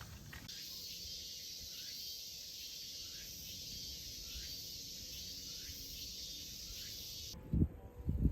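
Steady high insect drone with a faint chirp repeating about once a second. It cuts off sharply near the end, followed by a few low thumps.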